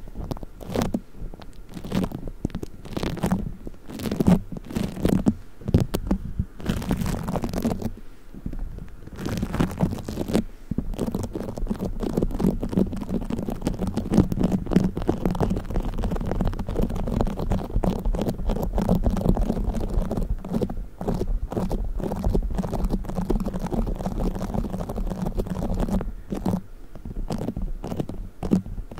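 Play foam, tiny foam beads in a sticky binder, squished and kneaded right against the microphone: crackling, squelching squeezes, separate at first, then a long stretch of continuous crackling through the middle, then separate squeezes again near the end.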